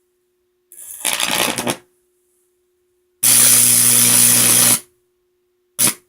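High-voltage arcs from a microwave oven transformer: a crackling burst about a second in, then a loud, steady buzzing arc lasting about a second and a half, and a short snap near the end. Between the arcs the energised transformer hums faintly.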